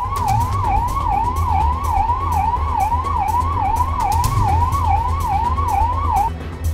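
Emergency vehicle siren wailing rapidly up and down, about two sweeps a second, over a steady low rumble. The siren stops shortly before the end.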